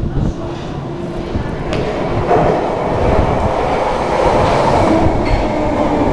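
London Underground tube train arriving from the tunnel into the platform, its rumble growing louder as it approaches. Near the end a low whine sets in and falls slightly as the train runs alongside the platform.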